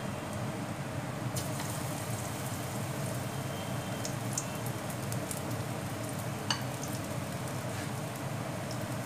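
Pakoras deep-frying in hot oil in a wok, sizzling steadily with scattered crackles and one sharper pop about six and a half seconds in.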